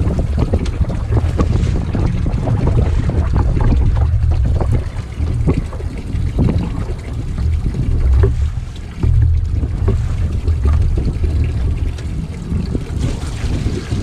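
Strong wind buffeting the microphone, a heavy, gusting rumble, with scattered short knocks and clicks throughout.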